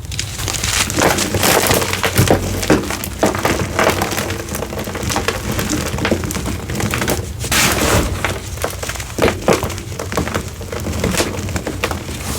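Hard, flaky block of over-dried citric-acid-soaked gym chalk being crushed and crumbled, giving a dense, continuous run of crisp cracks and crunches.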